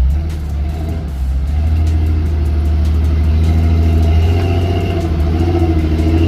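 4x4 vehicle's engine running under load while driving, a deep steady drone that grows louder about a second and a half in.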